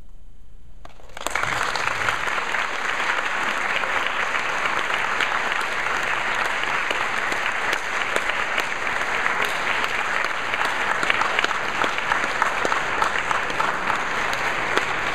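Audience applauding: the clapping breaks out about a second in after a brief hush and carries on steadily.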